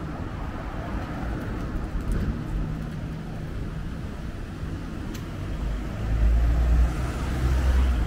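Street traffic: cars passing on the road alongside, over a steady low hum, with a louder low rumble from about six seconds in.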